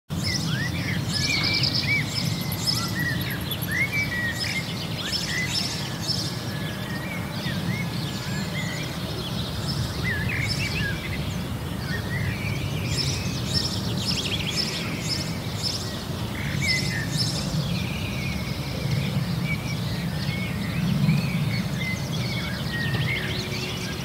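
Several songbirds singing, with short rising and falling whistles and quick chirped trills scattered throughout, over a steady low rumble.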